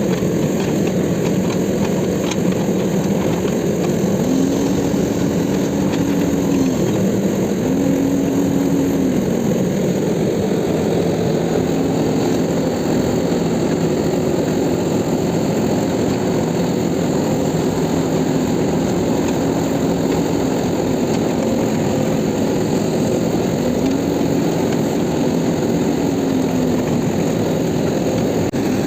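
Macons self-loading concrete mixer's diesel engine running steadily, with a low hum that rises and falls for a second or two at a time, several times over.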